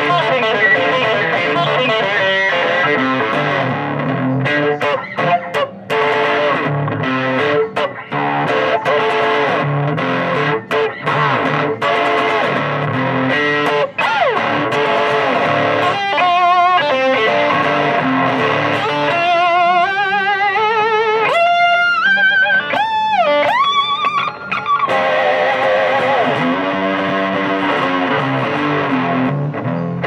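Electric steel guitar played with a slide through overdriven effects, in sustained notes with a bass line under them. About halfway through the notes turn into fast wavering slides that swoop up and down in pitch.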